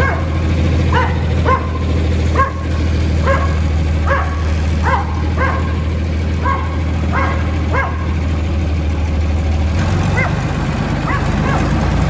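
A small dog barking over and over in short, sharp barks, one or two a second, thinning out to a few fainter barks near the end. Under it a tractor engine runs steadily, and its note changes about ten seconds in.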